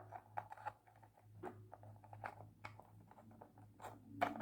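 Faint, scattered small clicks and taps of a wooden puzzle box and its keys being handled and tried in the keyhole, over a steady low hum.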